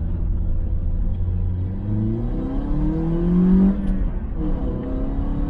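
2009 Toyota Corolla's four-cylinder engine with an aftermarket Borla exhaust, heard from inside the cabin, pulling hard under acceleration. The revs hold steady, then climb from about two seconds in, drop with a quick manual upshift just before four seconds, and climb again in the next gear.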